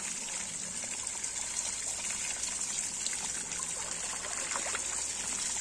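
Backwash water from a pool sand filter pouring steadily out of a corrugated hose into a full bucket, splashing and spilling over the rim.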